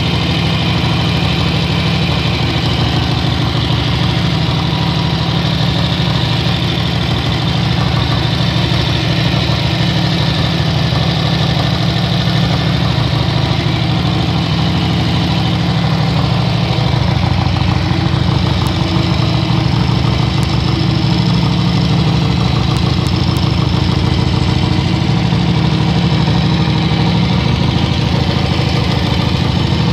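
Harley-Davidson XR1000 race engine, an air-cooled V-twin, running steadily with an even beat.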